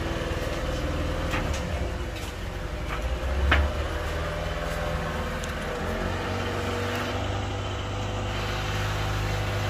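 Boat engine running steadily with a low drone, with a sharp knock about three and a half seconds in.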